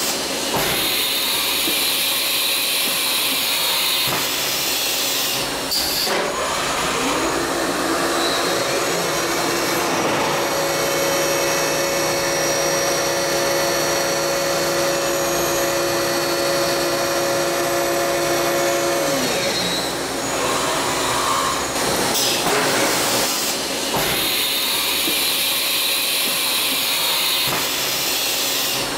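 Milltronics VM-17 CNC vertical machining center running under power, with the whir and hiss of its spindle head travelling up and down. A motor whine rises about seven seconds in, holds steady, and winds back down about two-thirds of the way through, before the whirring resumes.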